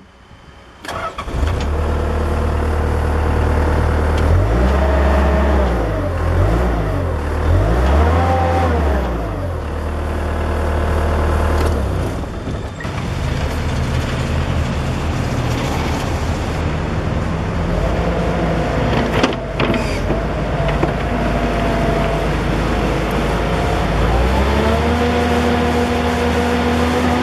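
Terex PT70 compact track loader's diesel engine starting about a second in, then running. It is revved up and back down twice, and later brought up to a higher steady speed.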